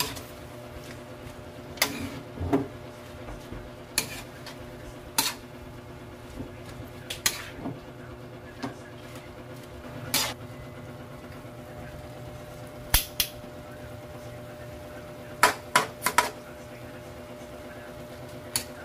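Metal slotted turner knocking and scraping against a metal wok as vegetables are stir-fried: scattered sharp clanks a second or two apart, with a quick run of them near the end, over a steady low hum.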